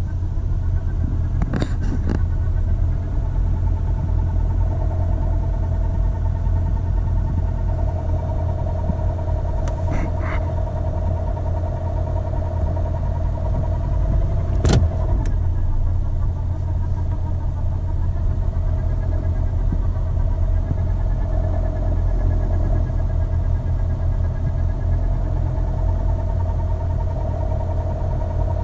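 Steady whine from a 2016 Honda CR-V's CVT at low speed, two fairly constant tones over a heavy low rumble, the transmission noise that the owner hears only in drive and reverse. A few short clicks sound, the sharpest about fifteen seconds in.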